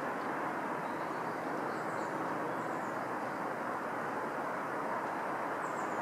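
Steady distant city traffic noise, even and unbroken, with a few faint high chirps about two seconds in and again near the end.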